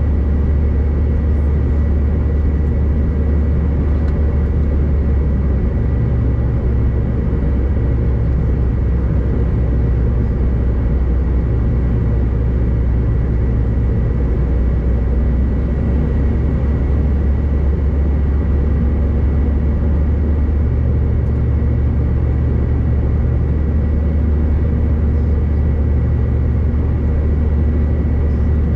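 Steady cabin noise inside a Bombardier CRJ-900 jet in flight: a constant low rumble from its twin rear-mounted turbofans and the airflow, with a thin steady whine above it.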